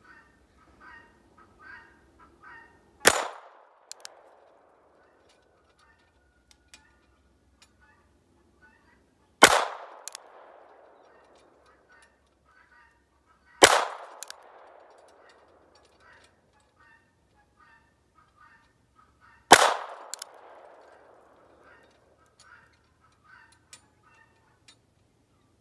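Four single shots from a North American Arms .22 mini-revolver firing .22 Long Rifle, several seconds apart, the first about three seconds in. Each is a sharp crack with a short echoing tail.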